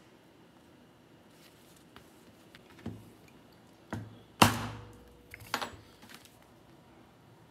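A few sharp knocks at uneven intervals: a mallet striking a steel leather-working chisel held against leather on a poly board. The loudest knock comes about halfway through.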